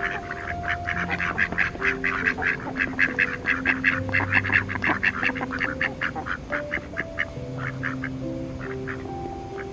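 A group of ducks quacking in quick, overlapping calls, busiest mid-way and thinning out near the end, over soft background music with held notes.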